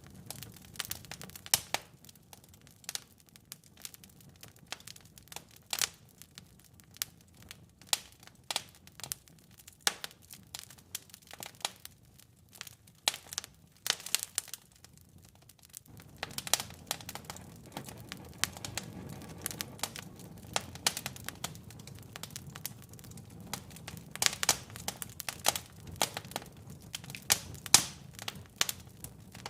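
Wood fire crackling in a fireplace: irregular sharp pops and snaps over a low steady rumble, which grows louder about halfway through.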